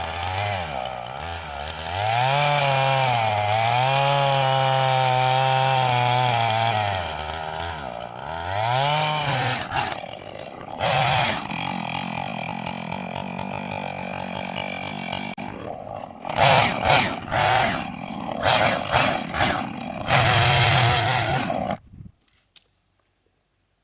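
Husqvarna two-stroke chainsaw running at high revs through a cut, its pitch dipping and recovering several times as it bogs under load. In the second half it is blipped in a string of short revs before cutting off suddenly near the end.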